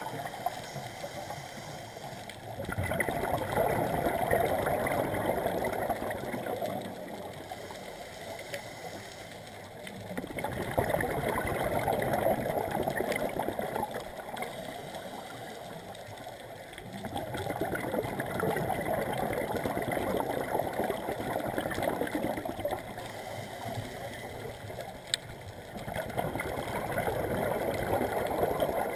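Scuba regulator exhaust bubbles from the filming diver's own breathing underwater: a gurgling rush of bubbles on each exhalation, four times at roughly seven-second intervals, with quieter inhalations between.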